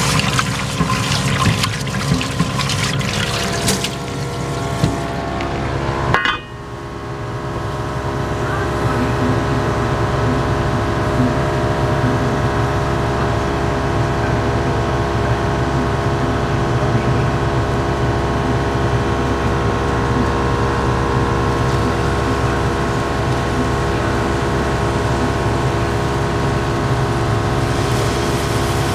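Tap water running and splashing into a frying pan in a stainless steel sink, cutting off abruptly after about six seconds. Then a steady low rumble with a constant hum as a gas burner heats the wet pan on a kitchen range.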